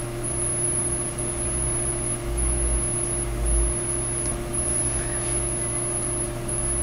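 Steady background hum with a low rumble, which swells briefly a little over two seconds in; the stamp being held on the foam makes no clear sound.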